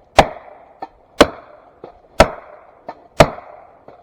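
Four evenly spaced, heavy blows, about one a second, driving a felling wedge into the back cut of a standing tree to tip it over. Each blow has a short ring and a light tap just before it.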